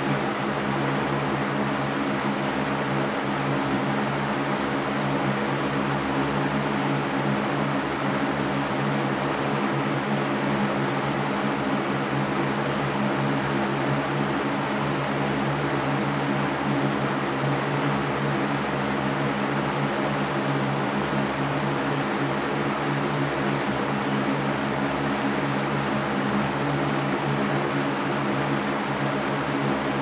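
Large Mastercraft electric fan running steadily: a constant rush of air with a low, unchanging hum underneath.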